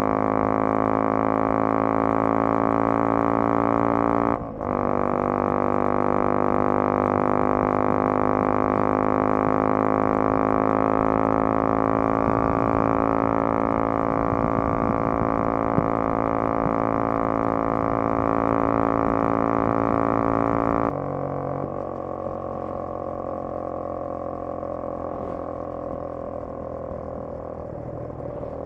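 Honda CBR250R's single-cylinder engine running under load, a steady drone that climbs slowly in pitch, with a brief break about four seconds in. Around three quarters of the way through the note drops and gets quieter as the throttle comes off.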